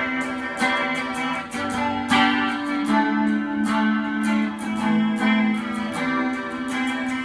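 Guitar playing a tune in quick, evenly paced plucked notes, with a held bass note ringing underneath.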